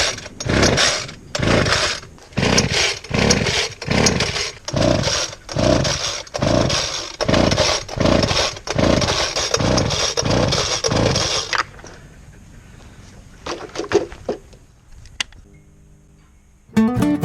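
Sulphur-crested cockatoo screeching: a long run of harsh, raspy calls, about one and a half a second, that stops about twelve seconds in. A few sharp clicks follow, and guitar music starts near the end.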